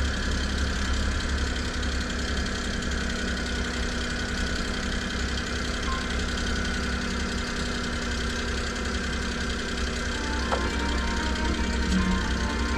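Nissan NV100 Clipper kei van's small engine idling steadily.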